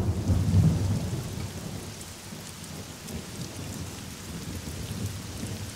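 A rumble of thunder breaks in suddenly and dies away over a second or so, over the steady hiss of falling rain.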